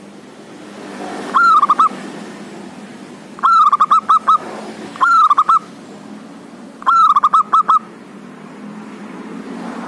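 Male zebra dove (local perkutut) singing loudly in four short phrases. Each phrase is a rising-and-falling coo followed by a quick run of short, clipped notes.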